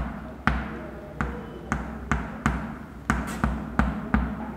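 Writing on a board: about a dozen sharp, irregularly spaced taps, each followed by a short scratch.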